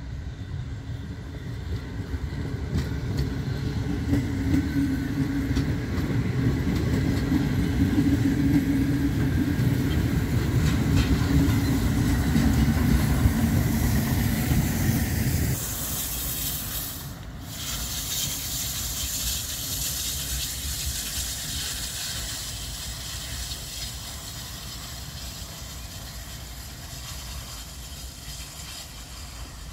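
Steam train running on the rails: a loud, steady low rumble of the Ol49 steam locomotive and its coaches. About halfway through it drops suddenly to a quieter hiss of the train further off, which slowly fades.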